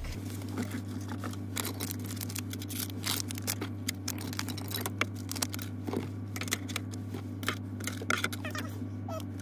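Small items being put back into a car's plastic glove box: rustling and many light clicks and knocks of pouches and packets being handled and set down.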